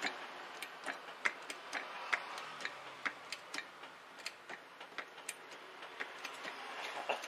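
Hydraulic floor jack being worked, giving sharp, irregular metallic clicks about two to three a second as the car is raised.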